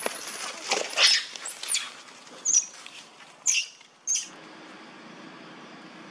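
Macaques giving a string of shrill, high-pitched calls and squeals in quick succession, the last about four seconds in. After that only a faint steady hum remains.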